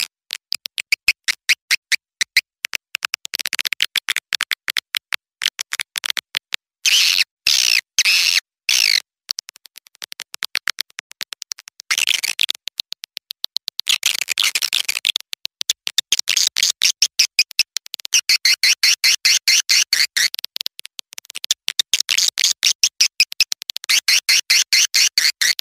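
Recorded calls of young swiftlets played as a swiftlet-house lure call: fast, high-pitched trains of clicking chirps that come in bursts of a few seconds with short breaks between them.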